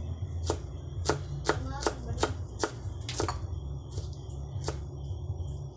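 Kitchen knife slicing a red onion on a wooden chopping board: a series of sharp knocks as the blade hits the board, roughly two a second and unevenly spaced, over a steady low hum.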